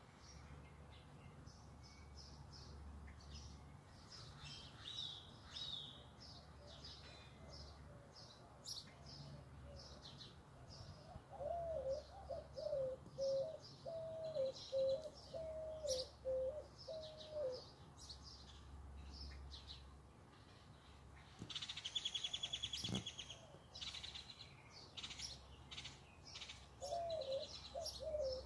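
Outdoor birdsong: small birds chirping repeatedly with short high notes throughout. A dove coos in a run of low notes about a third of the way in and again near the end. A brief buzzy trill comes about three-quarters of the way through.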